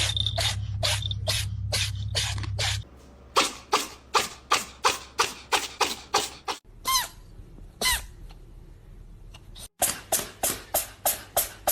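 Steady rhythm of short sharp clicks, about three a second, over a low hum, like a percussive beat. It breaks off about seven seconds in, where two short falling squeaks sound, and starts again near the end.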